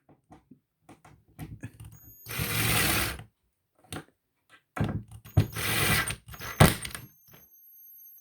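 Impact driver running screws into a cabinet door hinge in two runs, the first about a second long and the second nearly two, with a steady high whine in each and small clicks and taps of handling between them.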